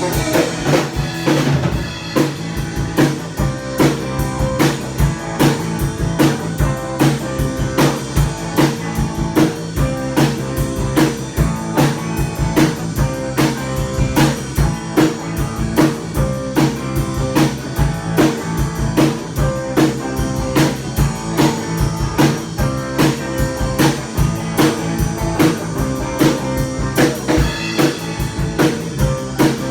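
Band music with a drum kit keeping a steady beat under guitar.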